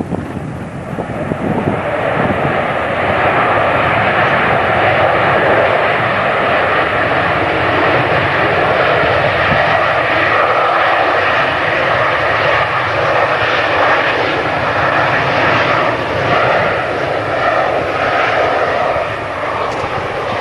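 Airliner engines running loud, with a whine over a steady roar that builds over the first couple of seconds, holds, and eases a little near the end.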